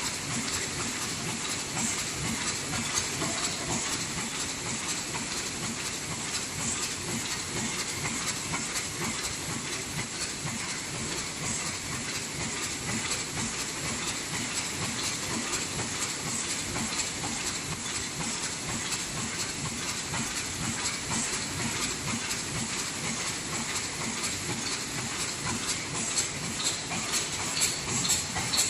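Double wall paper cup sleeve machine running at production speed, about 130 sleeves a minute: a rapid, steady mechanical clatter over a constant hiss.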